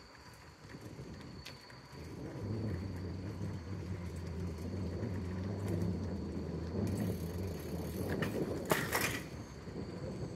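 A motor vehicle's engine rumbling low and steady, growing louder about two seconds in, with a short hiss near the end.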